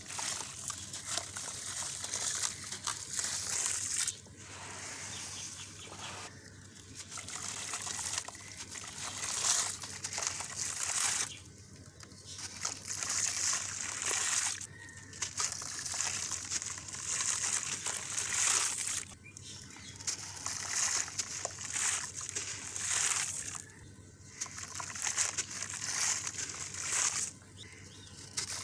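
Gritty reused cement with concrete stones being crumbled in water: wet, gritty crackling and sloshing that stops briefly every few seconds.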